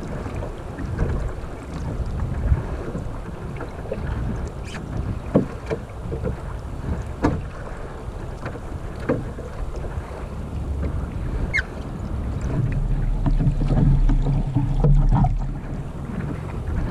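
Wind buffeting the microphone aboard a Sunfish sailing dinghy under way, a steady low rumble with scattered light knocks and taps. The wind noise swells louder for a few seconds after about twelve seconds in.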